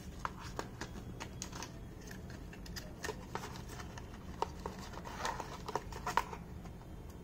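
Card and plastic packaging being handled: scattered light clicks, taps and rustles, busiest about five to six seconds in, over a steady low hum.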